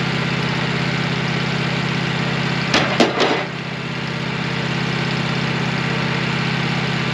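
Engine idling steadily with an even pulse, broken about three seconds in by three sharp knocks in quick succession.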